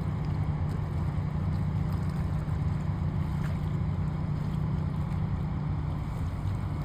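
Steady low engine drone of a large cargo ship sailing past.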